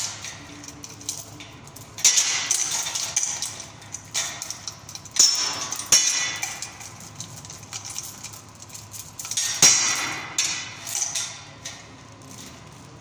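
Steel chain clinking and rattling against a steel pipe as it is wrapped round to clamp a drilling machine onto the pipe, with a few sharper metal clanks.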